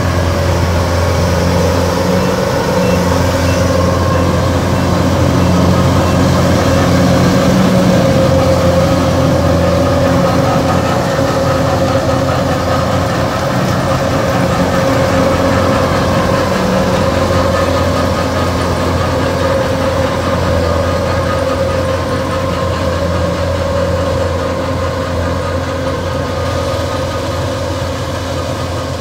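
Kubota DC-105X combine harvester's diesel engine and threshing machinery running steadily with a constant hum as the tracked machine works through deep mud.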